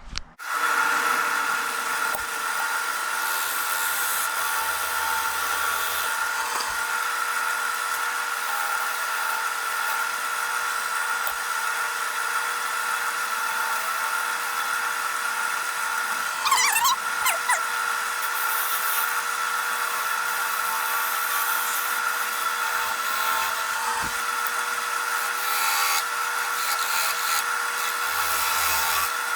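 Wood lathe starting up and running steadily with a constant motor whine as it turns a fatwood pine blank, with a brief wavering pitch about halfway through.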